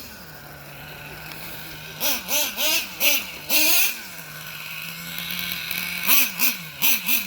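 A 3.3-litre engine with a very loud exhaust, idling steadily, then blipped through a string of quick revs about two seconds in, settling back to idle, and revved in several more quick blips near the end.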